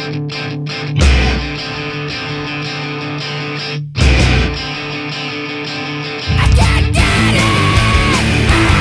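Post-hardcore rock band recording: electric guitar holding sustained chords, with heavy accented hits about one second and four seconds in, then the full band with distorted guitars and drums coming in louder at about six seconds.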